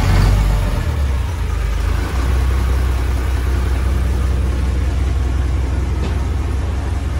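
Houseboat's engine running steadily: a loud, even, low drone.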